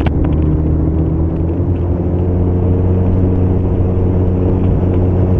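Motorcycle engine running at a steady cruising speed, its note holding level, with road and wind noise.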